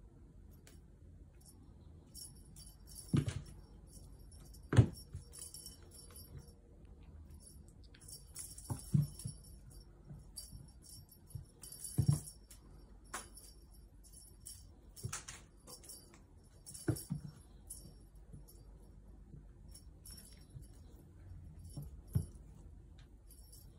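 A small bell on a cat toy jingles in short bursts every few seconds as a kitten plays with it. Soft thumps of the kitten pouncing and landing on the hard floor come in between, the loudest about five seconds in.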